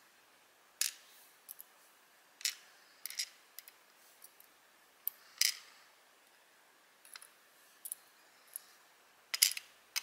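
Metal tweezers handling small brass lock pins and setting them into a plastic pin tray: about a dozen light, irregular clicks and taps, the loudest near the end.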